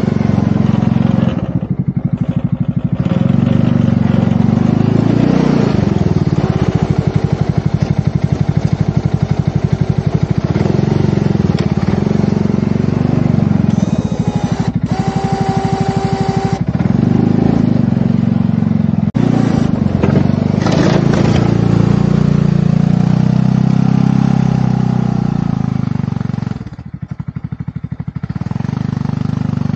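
An engine running steadily with a dense, even pulsing, dropping back briefly about two seconds in and again near the end. A short steady tone sounds over it about halfway through.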